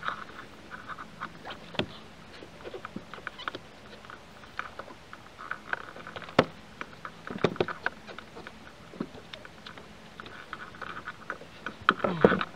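Scattered clicks, taps and knocks of unhooking a freshly caught bonito with pliers in a plastic fishing kayak, with sharper knocks about six and seven and a half seconds in and a busy cluster of knocks near the end.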